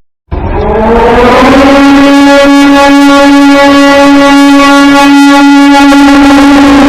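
Air-raid siren starting after a split second of silence, winding up from a low pitch and then holding a loud, steady wail.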